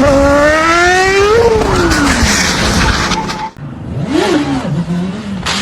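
A motor revving: one pitched tone climbs for about a second and a half, then falls away, over a loud rushing noise that cuts off suddenly about three and a half seconds in.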